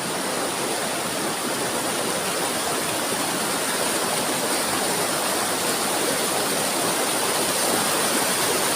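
Waterfall pouring into a river: a steady rushing of water.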